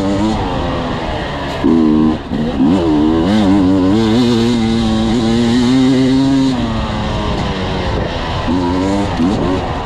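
Enduro motorcycle engine heard close up from the bike, revving up and down with the throttle as it rides a trail. A long held pull runs from about three to six and a half seconds in, then the revs drop away and rise again near the end.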